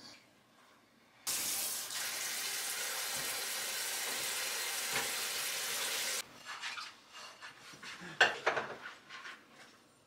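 Kitchen tap running into the sink for about five seconds, turned on and off abruptly. A few light clicks and knocks follow, with one louder short sound about eight seconds in.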